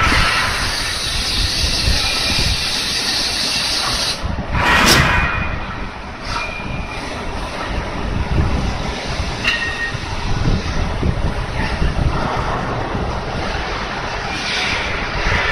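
KIRA KN40Vb vertical machining center milling an axle flange under flood coolant: steady machine and cutting noise with a hiss of spraying coolant, and a louder rush of noise about five seconds in.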